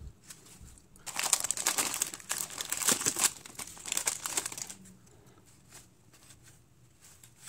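Clear plastic wrapper of a baseball card rack pack crinkling and crackling as it is pulled open by hand, for about four seconds starting a second in. The pack is tightly sealed and hard to open.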